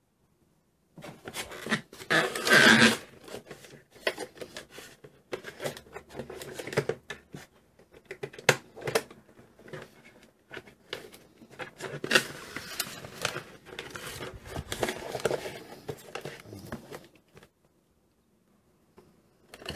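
Cardboard and plastic toy packaging being handled and opened: irregular rustling, scraping and clicking of the box. The sounds stop about two seconds before the end.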